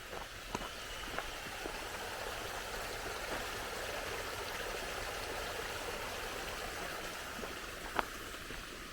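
Running water of a stream, a steady rushing that grows louder and then eases off. A few sharp ticks sound over it, the loudest near the end.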